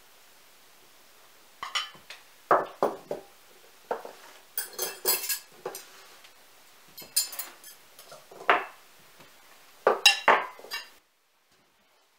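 Dishes and cutlery clinking and clattering on a table as it is set: a run of separate knocks and clinks, the loudest near the end, stopping suddenly.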